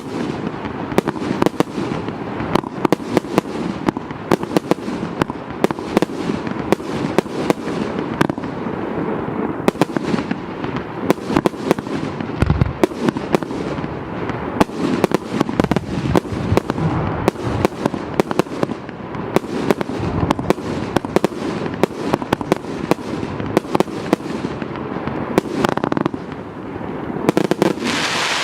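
A 200-shot, 1.2-inch-calibre "Mothership" firework cake firing without a break: a rapid string of sharp launch bangs and crackling bursts, several each second.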